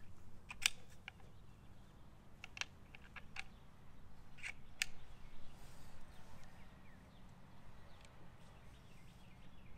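Sharp metallic clicks and clacks from handling the bolt action of a Seneca Dragon Claw .50 caliber PCP air rifle as it is cocked and loaded, about nine clicks in the first five seconds in small clusters, then only faint background.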